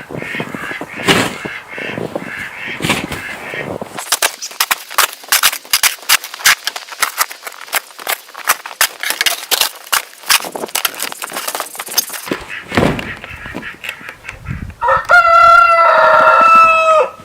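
A dense run of crunching, crackling snow sounds in the middle, then a rooster crows near the end: one long, loud, steady-pitched crow of about two seconds.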